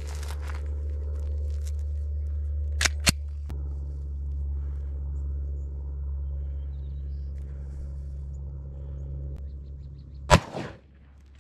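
A single shot from a Glock 29 pistol firing a 10mm Hornady 180-grain XTP round, one sharp report with a short tail near the end. Two sharp clicks in quick succession come about three seconds in, over a steady low rumble.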